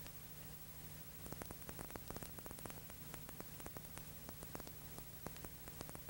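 Steady hiss and hum with irregular crackling clicks starting about a second in: static and crackle on the soundtrack of a silent old film transfer.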